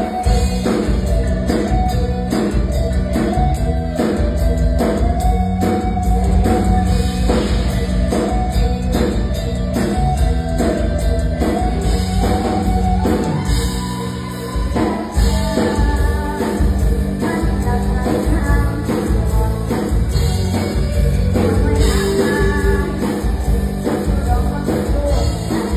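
Live amplified stage music: a girl singing through a microphone over a band with an even drum beat, about two beats a second.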